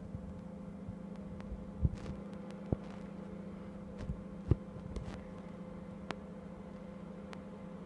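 Microwave oven running with a steady hum, a few light knocks over it.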